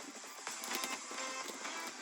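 Background music, with a few light clicks and scuffing noises over it.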